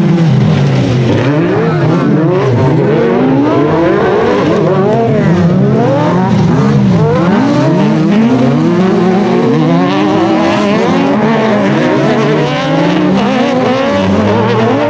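Several autocross buggy engines revving hard, their pitches sweeping up and down over one another as the buggies accelerate and slow through the dirt-track corners.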